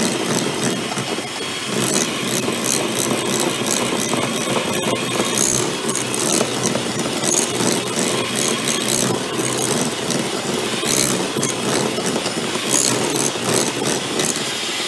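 Handheld electric mixer running steadily, its beaters creaming softened butter and caster sugar in a glass bowl, with the beaters ticking against the glass at irregular moments.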